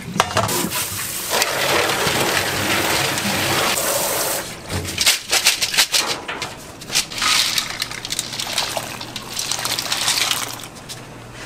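Water running and splashing over soaked beans in a perforated stainless steel colander. From about four seconds in, a dense clatter of beans rattling against the metal as they are stirred by hand, and near the end beans dropping into a pot of boiling water.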